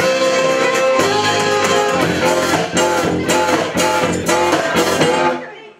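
Live band of fiddle, banjo, bass guitar and guitar playing the closing bars of a song in strummed strokes, stopping on a final chord about five seconds in.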